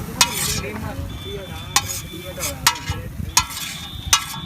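Metal spatula clanking against a pan as sweet corn is stirred and tossed, about five sharp strikes, over a steady hiss of frying.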